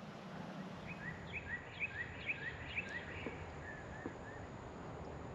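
A songbird chirping faintly over steady outdoor background noise: a quick run of short rising chirps, then a few softer falling notes near four seconds in.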